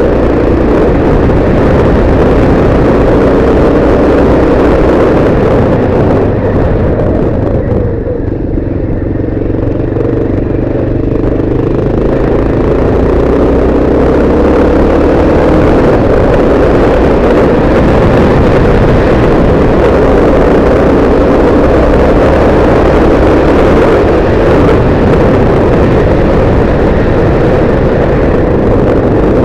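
Yamaha XT600's air-cooled single-cylinder four-stroke engine running as the motorcycle rides along, mixed with a steady rush of noise. About eight seconds in the sound drops and the engine note slides in pitch for a few seconds, then it returns to full strength.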